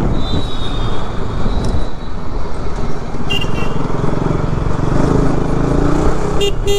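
KTM RC 200's single-cylinder engine running as the bike rides slowly through town traffic, with road and traffic noise around it. Two short high beeps cut through, a little after three seconds in and again near the end.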